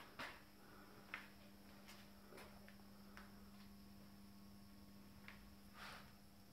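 Near silence: room tone with a faint steady hum and a few scattered faint clicks and knocks.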